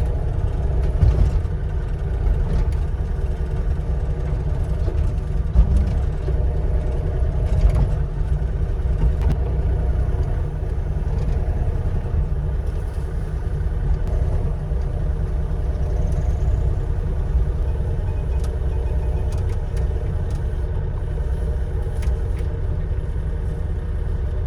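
Bobcat E35 mini excavator's diesel engine running steadily while it works, with sharp knocks and cracks now and then.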